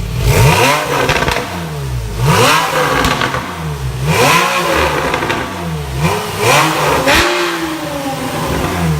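Porsche 991 Carrera GTS's 3.8-litre flat-six revved in short throttle blips about every two seconds, rising sharply and falling back to idle, through an Akrapovic titanium exhaust with its valve closed. A smaller blip comes near the end.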